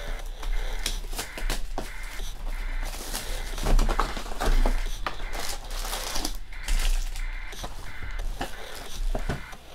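Cellophane shrink wrap being torn and crinkled off a Panini Prizm trading-card hobby box, then the cardboard box handled and its lid opened: a run of irregular crinkles and clicks.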